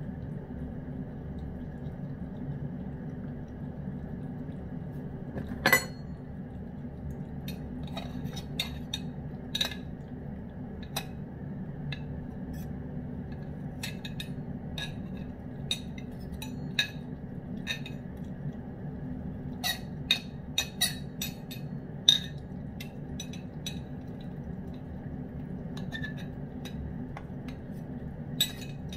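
A cat eating fried chicken from a hand-held dish, with scattered sharp clicks and clinks as a metal knife works the meat in the dish, over a steady low hum.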